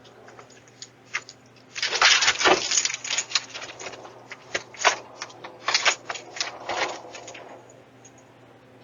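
Irregular crackling and rustling with many sharp clicks, heard through a doorbell camera's microphone. It is densest from about two seconds in until near the end.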